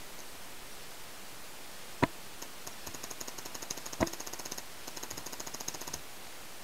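Paintball markers firing: two sharp, loud pops about two seconds apart, with a rapid string of lighter ticks, several a second, running around and after them for about three and a half seconds.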